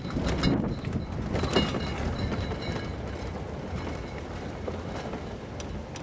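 Toyota Tacoma 4x4 pickup rolling slowly over a rough dirt road: a steady rumble with the body rattling, a few sharp knocks in the first couple of seconds and some faint squeaks.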